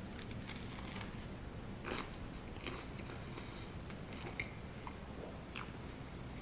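A person biting into and chewing toast topped with egg whites, with a few faint crunches and clicks spaced about a second apart.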